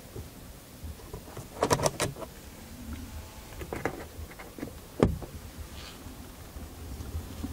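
Handling clicks and rattles: a quick cluster of rattling clicks about two seconds in, a few lighter clicks, and one sharp click about five seconds in, over a low steady rumble.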